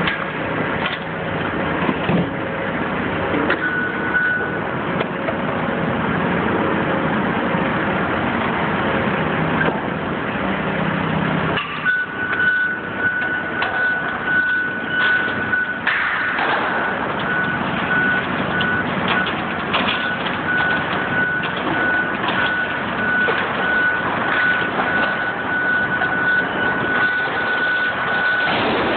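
Diesel engines of tracked hydraulic excavators running under load during a building demolition, with scattered knocks and crashes of sheet metal and debris. From about twelve seconds in, a high warning tone from one of the machines sounds, first held, then broken into beeps.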